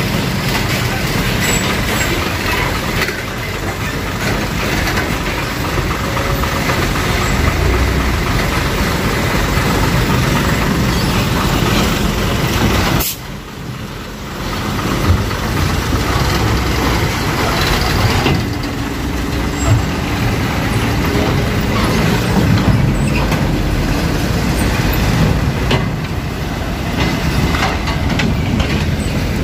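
Heavy trucks driving past one after another, engines running, with a brief drop in level about thirteen seconds in.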